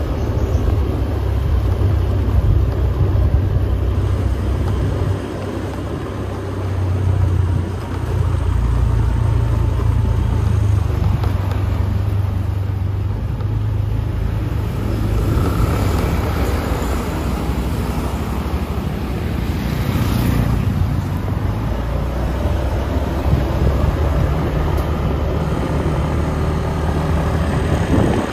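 Road noise from a vehicle travelling along a street: a loud, steady low rumble of engine, tyres and wind on the microphone, with traffic around it.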